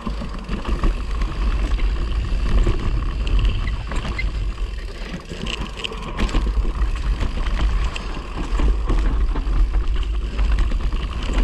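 Mountain bike riding fast down a dirt singletrack, heard through a bike-mounted action camera: a loud, steady low rumble of wind on the microphone and tyres on dirt, with scattered clicks and rattles from the bike.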